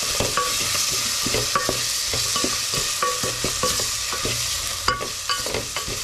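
Beef, onions, spices and tomato paste sizzling as they fry in a pot while being stirred. A spoon scrapes and knocks against the pot about twice a second, some knocks ringing briefly.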